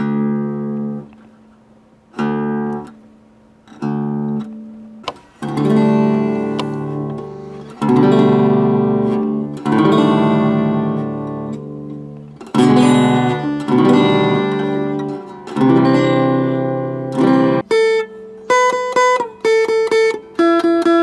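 Acoustic guitar being strummed, a string of chords each struck sharply and left to ring, turning near the end to single notes picked one after another.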